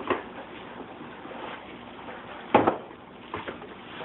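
Unboxing handling: a box and its packing materials being moved and rustled, with a few knocks, the loudest about two and a half seconds in.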